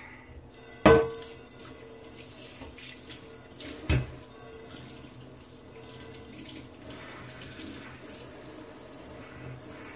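Kitchen tap running onto a cast iron pan in a stainless steel sink as the pan is rinsed off after its lye bath. A sharp metallic clank about a second in rings briefly, and a second knock comes about four seconds in.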